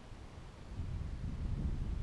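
Wind buffeting the microphone: a low, uneven rumble that grows louder a little under a second in.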